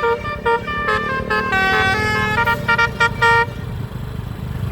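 Basuri-type telolet bus horn playing a quick tune of short, stepped notes that stops about three and a half seconds in, over the low rumble of the bus engine.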